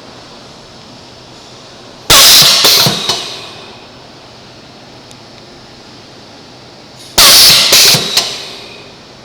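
Filling machine running with a steady hum and twice letting out a loud metallic clang, each a quick cluster of three or four bangs that ring away, about five seconds apart: the abnormal noise (異音) of the machine.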